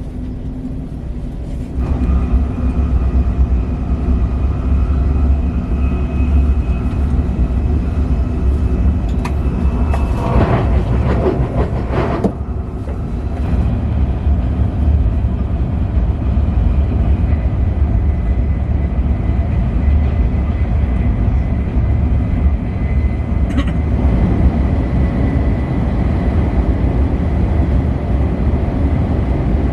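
High-speed KTX train running, a steady loud low rumble with a faint whine over it; a louder rushing stretch comes about ten seconds in and lasts a couple of seconds.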